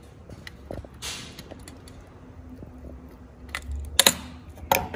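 Scattered light clicks and taps from fingers and tools handling fine wires at a circuit board during soldering, with a brief hiss about a second in and a couple of sharper clicks near the end.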